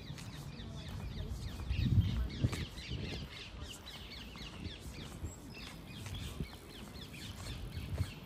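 Many small birds chirping and singing, with dense short calls throughout. Low rumbling bumps on the microphone come and go, loudest about two seconds in.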